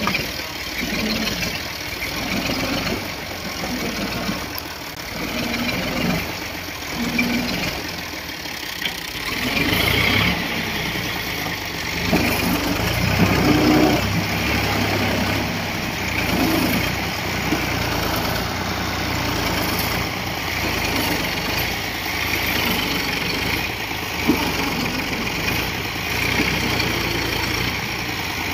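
Farm tractor's diesel engine running under load as it tries to haul a sand-laden trolley through deep mud. It gets louder and heavier about ten seconds in.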